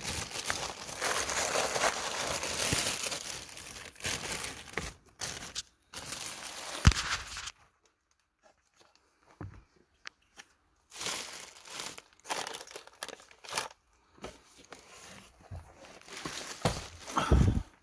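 Plastic packaging and a courier bag crinkling and rustling as parcels are handled and unwrapped, continuous for the first seven seconds and then in short bursts. A sharp knock comes about seven seconds in, and a dull thump near the end.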